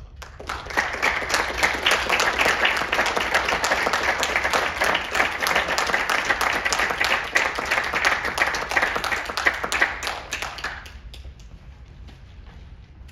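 Audience applauding, many hands clapping: it breaks out at once, holds for about ten seconds, then dies away.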